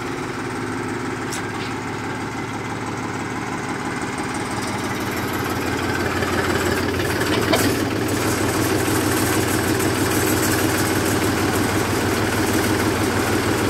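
Mahindra 265 DI tractor's three-cylinder diesel engine running steadily, growing louder from about halfway through.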